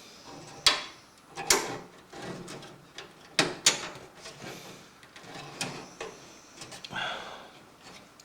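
Sheet-metal motherboard I/O shield being pushed and worked into the rear opening of a PC case: a string of sharp clicks and knocks with scraping and handling noise in between, as it is still not seating.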